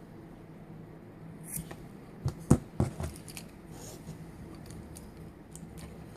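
Scissors snipping paracord: three sharp snips a little over two seconds in, the middle one loudest, trimming a cord end close to the bracelet.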